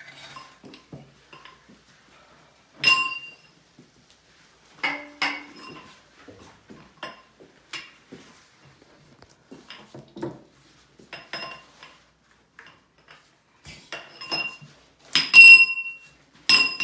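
Irregular metal-on-metal clinks and knocks that ring briefly, as steel foundation pier parts are handled and set in place in the excavation, with the loudest clanks near the end.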